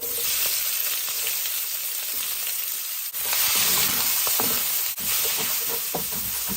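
Chopped red bell pepper, onion and celery sizzling loudly in hot oil in a pan as they are stir-fried, starting abruptly. From about halfway, a utensil scrapes and clicks against the pan many times as the vegetables are stirred.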